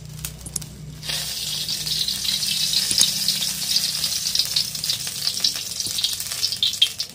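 Cooking oil poured from a plastic pouch into a wok on a gas stove. About a second in, the stream starts hitting the pan with a steady hiss and crackle.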